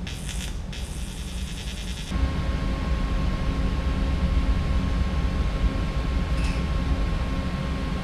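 TIG welding arc buzzing on cast aluminium in short tack-weld bursts, the last one stopping less than a second in. After that a steady low hum with a faint tone carries on.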